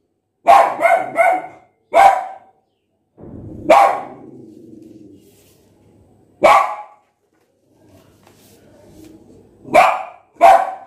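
A dog barking in short, sharp barks: a quick run of three near the start, then single barks spaced a second or more apart, and two close together near the end.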